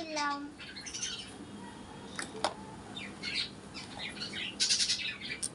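Small birds chirping and twittering in quick irregular bursts, busiest near the end, with one sharp click about two and a half seconds in.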